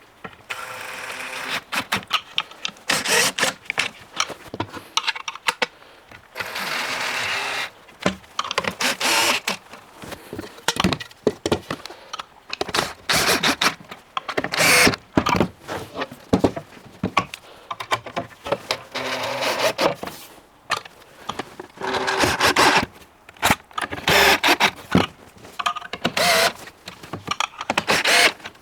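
Wooden cabinet panels being fitted together: repeated knocks, clicks and rattles of boards and fittings, with a few short runs of a power driver lasting about a second each.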